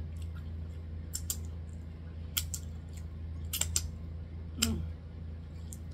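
Scattered wet mouth clicks and lip smacks, about seven sharp ticks, some in quick pairs, from someone licking butter off their fingers after eating corn on the cob. A steady low hum lies underneath.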